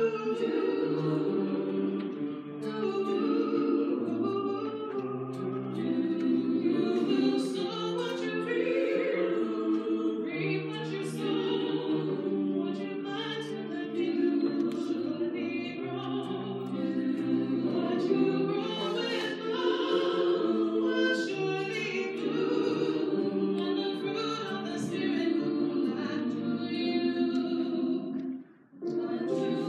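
Church choir singing together, many voices holding long notes. There is a short break in the singing just before the end.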